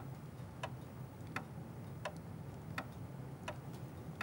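Faint, even ticking, about three ticks every two seconds, over a low steady hum.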